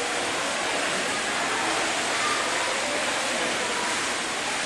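Swimmers kicking along on kickboards in an indoor pool: steady splashing blended into the echoing hall noise of the pool, with faint voices.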